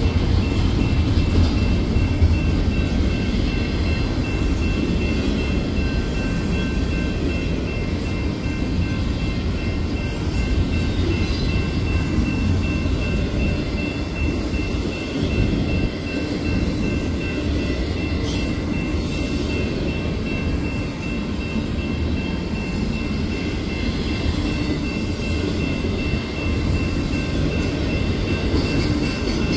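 Union Pacific double-stack intermodal train's container well cars rolling past at steady speed: a continuous low rumble of wheels on rail, with a thin steady high ringing tone over it.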